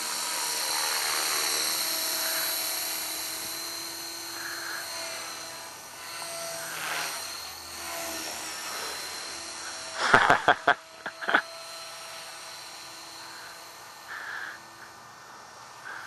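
Align T-Rex radio-controlled helicopter flying: a steady, high rotor and motor whine made of several tones that drift slightly in pitch. It is loudest in the first couple of seconds, then slowly fades as the helicopter moves away. A few sharp clicks come about ten seconds in.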